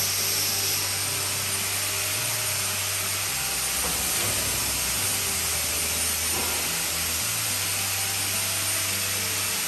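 Background music: a low, steady bass line that shifts pitch every second or so, under a rough, hissing texture.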